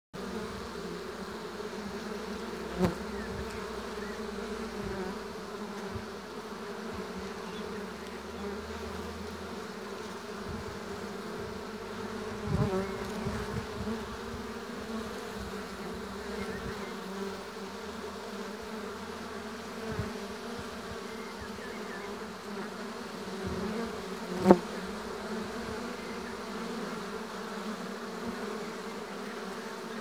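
Many honeybees buzzing in a steady hum, which jumps louder for a moment three times.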